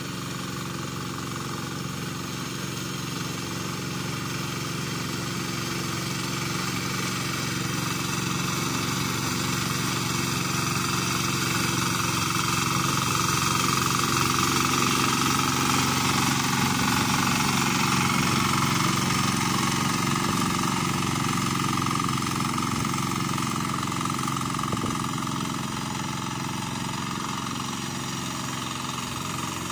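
A hand tractor's (turtle tiller's) 12 hp diesel engine runs steadily under load while tilling deep paddy mud. It grows louder as the machine passes close by around the middle, then fades as it moves away.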